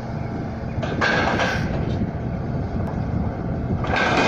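Atlas road-rail excavator running with a steady low rumble, with two brief higher hissing surges as the grab arm works, one about a second in and one near the end.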